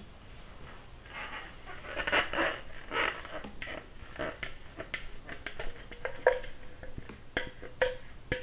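Kitchen utensil scraping and tapping against a mixing bowl while melted chocolate is poured: a run of scratchy scraping strokes, then sharp clicks, a few of them leaving the bowl ringing briefly.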